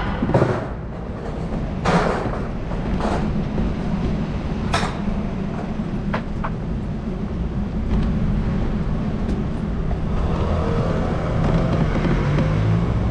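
City street traffic: a steady low rumble of passing vehicles, with a few short sharp clicks and knocks in the first half.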